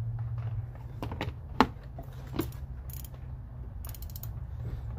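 GearWrench 72-tooth ratcheting box-end wrench clicking as its ratchet is worked by hand, in quick runs of fine clicks later on. Earlier there are a few sharp metal clinks as the wrenches are handled against their plastic tray, the loudest about a second and a half in.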